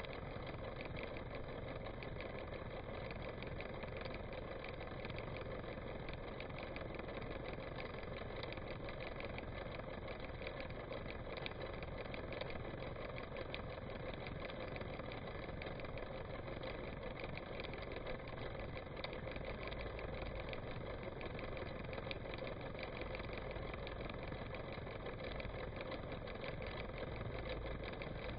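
An engine idling steadily at an even speed.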